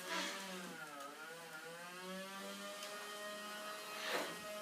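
A motor whirring, its pitch dipping and coming back up about a second in, then holding steady. A brief soft knock about four seconds in.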